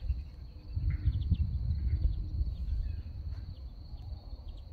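Outdoor ambience: a steady high insect trill over a low, irregular rumble, with a few faint bird chirps.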